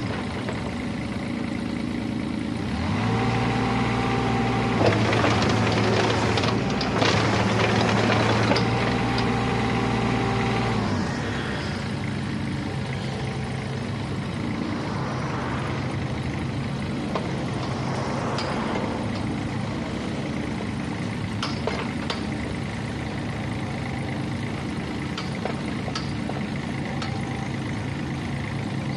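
Kubota U-30-5 compact excavator's diesel engine running while the hydraulics work the boom and arm. From about three seconds in, the engine rises in pitch and loudness under load for about eight seconds, with a steady whine and a few clanks. It then settles back to a steadier, quieter run.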